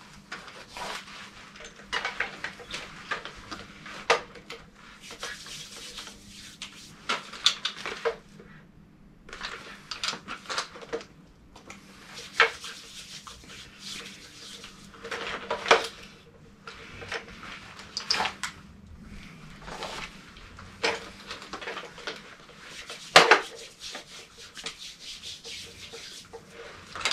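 Irregular clacks, knocks and rustling as airsoft replica guns and a plate carrier are handled, with hands rubbing together; one sharp knock late on is the loudest.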